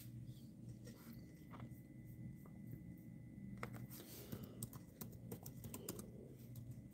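Faint typing on a laptop keyboard: quick, irregular key clicks, thickest from about three and a half to six seconds in, over a low steady hum.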